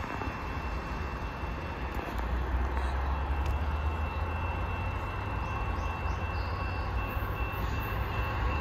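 Low, steady rumble of a distant freight train approaching behind its CP ES44AC and AC4400CWM diesel locomotives, growing slightly louder about two seconds in. A thin steady high-pitched tone runs under it, and a few faint short chirps come near the middle.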